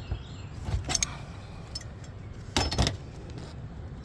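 A few sharp metallic clinks and rattles as hand tools squeeze a seam in copper roofing sheet, the loudest cluster about two and a half seconds in.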